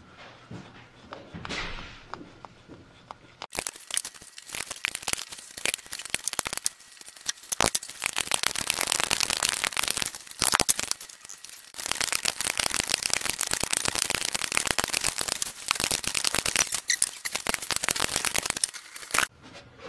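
A ratchet wrench clicking rapidly in long runs with short pauses, starting a few seconds in, as the nut of a pulley installer tool is turned to press the pulley onto a GM power steering pump's shaft.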